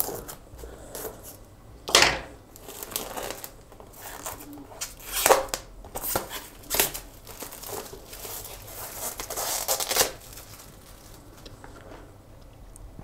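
Thin plastic shrink wrap being torn and peeled off a small cardboard box, crinkling in irregular bursts, with a sharp rip about two seconds in and a longer stretch of crinkling near the end.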